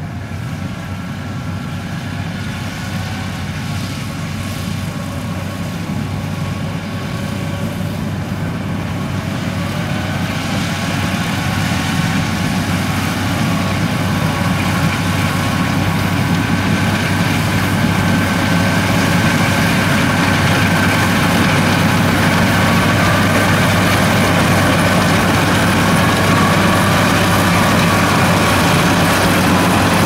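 Yanmar AW82V rice combine harvester running steadily, its diesel engine and harvesting machinery humming with a faint whine above, growing steadily louder.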